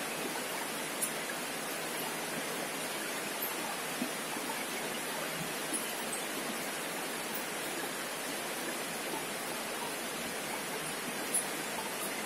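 A steady, even rushing noise with a few faint short clicks through it.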